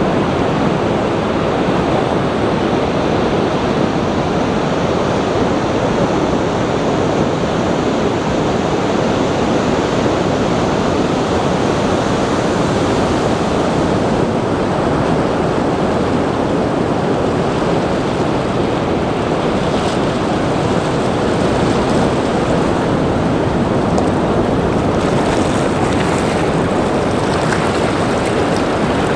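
Rushing water: a steady, loud roar that keeps on without pauses or swells.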